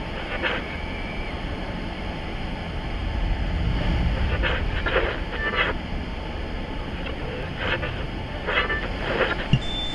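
Eerie film sound design: a steady hissing drone over a low rumble, broken by recurring clusters of short, crackling, buzzy pulses, in three groups.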